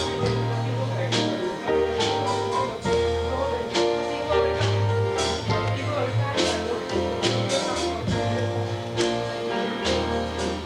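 Instrumental church band music with held bass notes, guitar and regular cymbal strokes keeping a steady beat.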